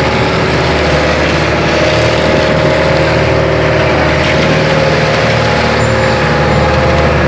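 Fishing boat's inboard engine running steadily, heard on board.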